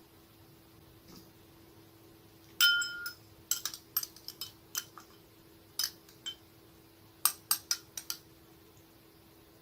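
Metal utensil clinking against glassware: one ringing strike a little over two seconds in, then a run of irregular light clinks and taps, over a faint steady hum.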